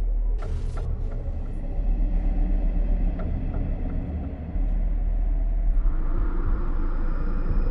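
Steady low rumble of a car driving, like road and engine noise heard from inside the cabin. A short hiss comes about half a second in, and a higher hiss swells near the end.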